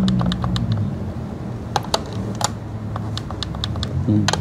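Scattered sharp clicks and taps of plastic desk equipment being handled, a few a second, over a steady low hum.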